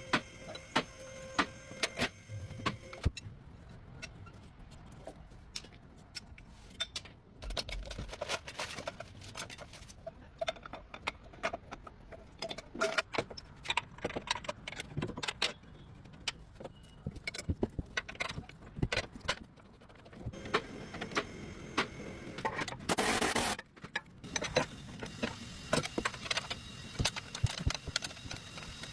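Metal tools clinking and knocking in irregular sharp strokes while a car's suspension lower control arm is worked on, with a loud burst of noise lasting about a second near the end.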